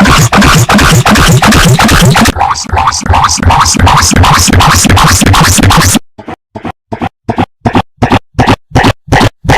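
Very loud, heavily distorted electronic audio-effects remix pulsing rapidly. About six seconds in it is chopped into short stuttering bursts, about three a second, with silent gaps between them.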